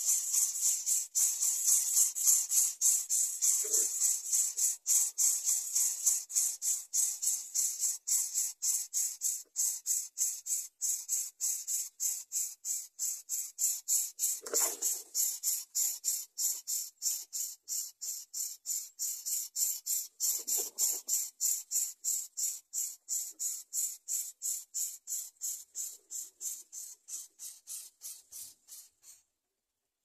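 A high hiss pulsing evenly about three times a second, fading in the last seconds and stopping just before the end, with three brief softer sounds about 4, 14 and 21 seconds in.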